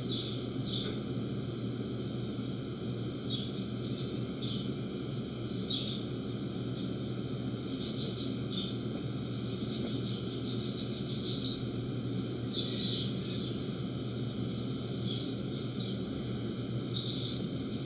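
Steady low hum and hiss of background noise, with short faint high-pitched blips every second or two.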